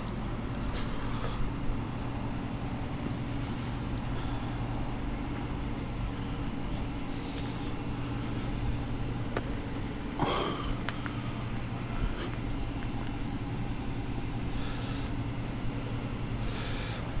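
Steady low hum of idling vehicle engines, with a few brief rustles and knocks.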